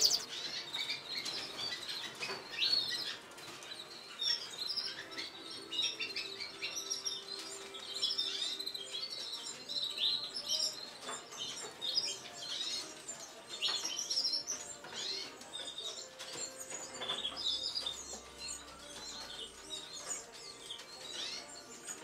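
Many caged canaries chirping and calling, short high notes and quick glides overlapping one another.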